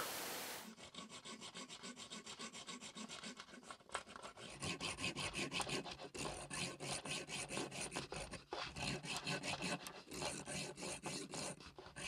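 Hand hacksaw cutting through a threaded bolt to shorten it: quiet, quick back-and-forth strokes, about four or five a second, with a few short pauses.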